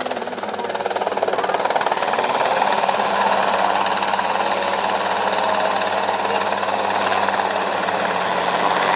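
Helicopter in flight, its engine and rotor running steadily with a fast, even beat. The sound grows louder over the first couple of seconds, then holds level.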